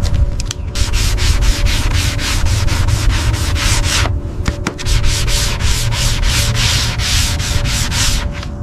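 Rapid back-and-forth rubbing strokes, like sanding or scrubbing, about five a second. They break off briefly just after the start and again about four seconds in.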